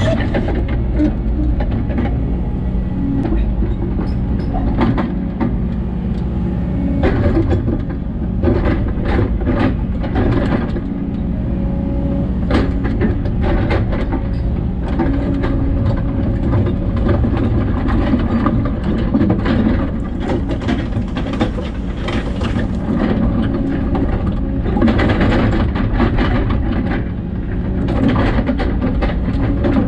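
Hidromek 140 excavator's diesel engine running steadily, heard from inside the cab, with hydraulic working noise and repeated clanks and knocks as the bucket handles stones.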